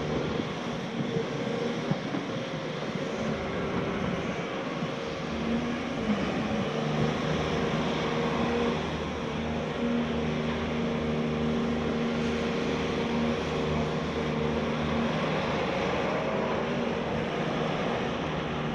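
Caterpillar hydraulic excavator's diesel engine running steadily under work, a held hum that fades in and out, with scattered knocks in the first few seconds.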